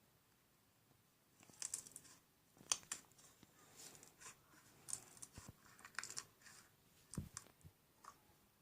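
Faint, irregular crackling clicks of a crunchy slime with styrofoam-like beads being squeezed and pressed, starting about a second and a half in.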